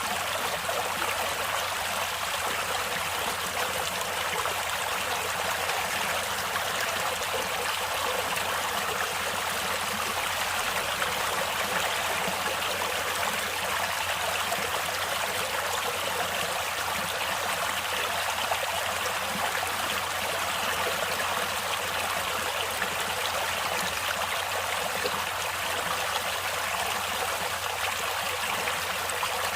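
Stream water flowing steadily, an even, unbroken rush of running water.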